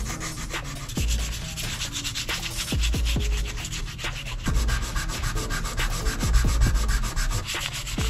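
Hand-sanding a plastic car door handle with 320-grit sandpaper: quick back-and-forth rubbing strokes of paper on plastic, with a few dull bumps as the part is handled.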